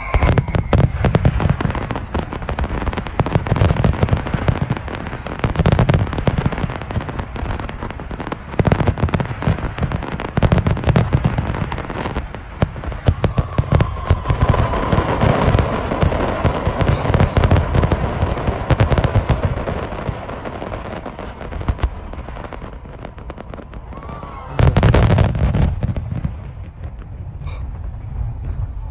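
Aerial fireworks bursting overhead: a steady run of booms and sharp crackling bangs, with a dense barrage of loud bursts near the end.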